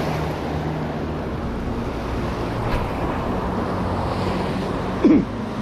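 Surf washing and breaking over shoreline rocks, with wind buffeting the microphone. A brief louder sound about five seconds in.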